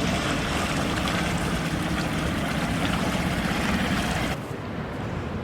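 Wind rushing over the microphone and water noise aboard a sailing yacht, with a faint low hum underneath. The rush drops off sharply about four seconds in.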